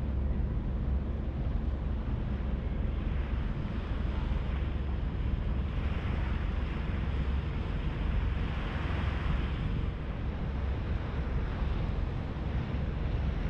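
HADAG harbour ferry underway, its engine giving a steady low rumble under rushing wind and water noise that swells a few times, strongest near the end.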